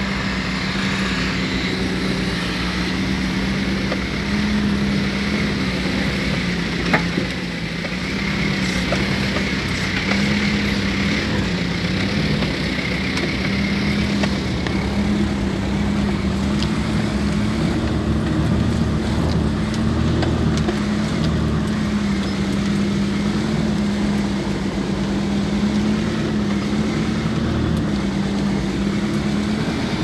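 A vehicle engine running steadily at a constant, slightly wavering pitch, with rumble from driving over a rough dirt road. There is one sharp knock about seven seconds in.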